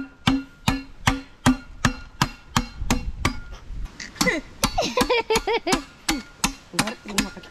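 Machete blade chopping and shaving the end of a thick green bamboo tube resting on a log: quick, regular blows, about three a second, each with a short ring.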